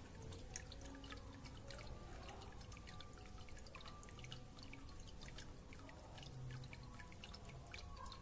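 Faint, irregular dripping of aqua regia solution draining through a cloth filter packed with crushed, burnt circuit-board pieces into a bucket below, as the filtering stage goes on. A low steady hum lies underneath.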